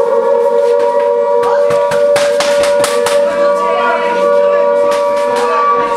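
Air-raid siren wailing on a steady pitch as a mock bombing alarm, with a run of sharp knocks and bangs about halfway through.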